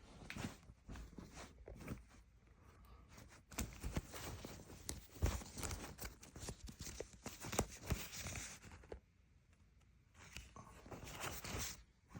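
Clothing being handled: a shirt rustling as it is unfolded and turned over, with irregular crinkles and soft knocks and a brief lull about nine seconds in.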